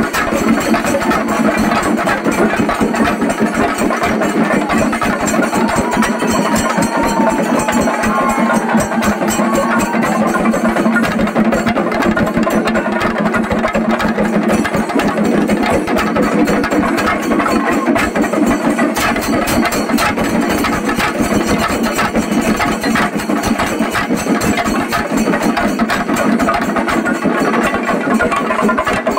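Singarimelam ensemble of chenda drums beaten with sticks in a fast, dense, unbroken rhythm.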